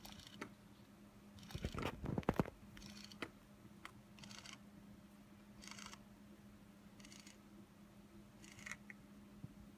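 Small DC geared motor whirring in short steps of about a third of a second, roughly every one and a half seconds, as a Raspberry Pi timelapse controller pulses it through a motor driver, one step per frame. About two seconds in comes a cluster of loud knocks from handling as the motor is picked up, and a faint steady hum sits underneath throughout.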